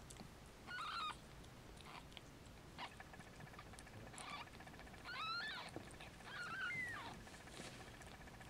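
Newborn kittens squeaking: four short, high mews, some gliding up in pitch and one falling, with a few faint clicks between them.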